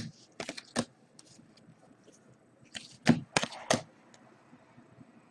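Football trading cards being thumbed through by hand, card edges snapping and sliding off the stack in sharp clicks: a few near the start and another run about three seconds in.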